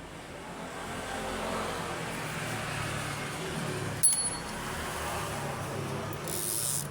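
Steady low rumbling background noise, such as traffic or an idling engine. A single sharp metallic click with a brief high ring comes about four seconds in, and a short hissing rustle comes near the end.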